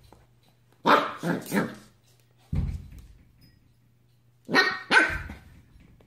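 Corgi puppy barking in short play barks: three quick barks about a second in, then two more near the end, with a single low thump in between.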